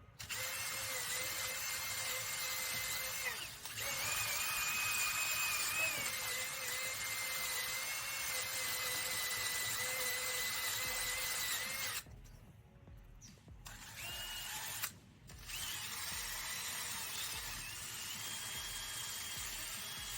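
Electric heat gun running, its fan giving a steady whine over a rush of air as it shrinks heat-shrink tubing onto a battery cable end. It cuts out briefly about three and a half seconds in, and again for about two seconds near the twelve-second mark, then starts up again.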